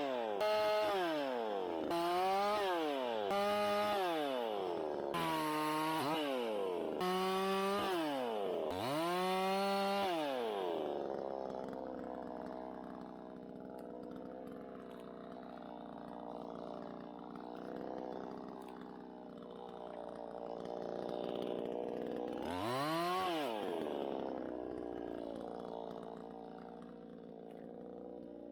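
Chainsaw revved up and down again and again in short bursts, about eight times, then left running steadily at low speed, with one more rev late on.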